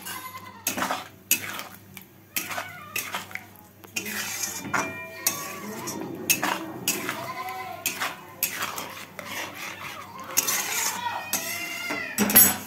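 Spatula stirring masala in a metal cooking pan: irregular scrapes and clinks against the pan, with a few short pitched squeals among them, and a loud knock on the pan near the end.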